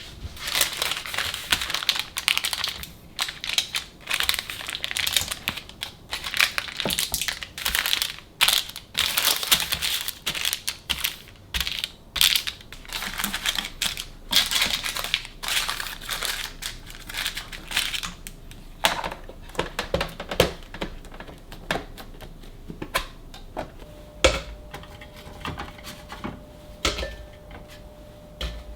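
Crinkling and rustling of packaging, like plastic bags or wrapping being handled, in dense irregular bursts. After about 19 seconds it turns softer and more scattered, and a faint steady hum comes in near the end.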